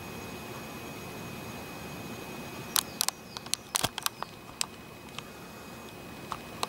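A quick run of about ten sharp clicks and taps over two seconds, with two fainter ticks near the end, over a steady hiss: handling noise from the camera.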